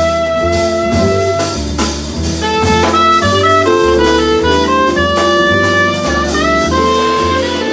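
Live jazz combo playing: drum kit with cymbals, a bass line stepping through low notes, and a melody of long held notes above.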